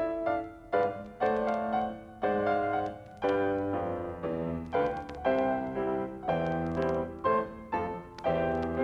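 Piano accompaniment music: a steady run of chords struck about twice a second, each fading after it is played.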